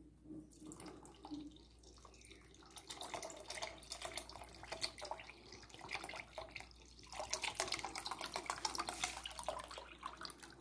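Milk poured from a carton into a pot of cooked white hominy, splashing into the liquid. The pour starts about two and a half seconds in and briefly slackens near seven seconds.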